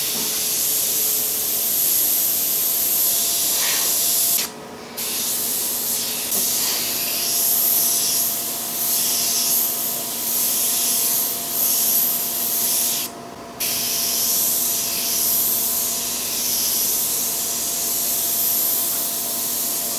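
Airbrush hissing as it sprays thinned detail white paint in long continuous passes. The spray cuts off briefly twice, about four and a half seconds in and again about thirteen seconds in.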